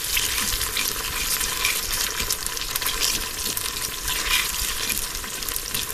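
Chopped onions and a red paste frying in hot oil in a pan while being stirred: a steady crackling sizzle.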